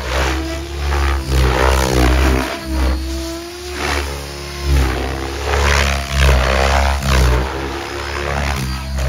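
Electric 700-size RC helicopter (Mikado Logo 700) flying 3D freestyle: the rotor blades whooshing and the motor whining, the pitch rising and falling again and again as the heli flips and changes blade pitch.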